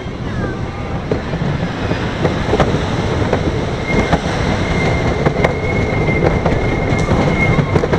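Wooden roller coaster train rolling along its track: a loud low rumble with irregular clacks from the wheels. From about four seconds in, a thin steady high-pitched squeal joins.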